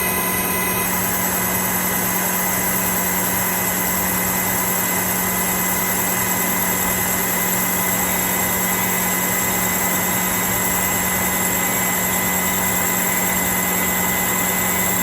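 Manual lathe running steadily while machining PEEK rod: a constant motor hum with steady high-pitched tones.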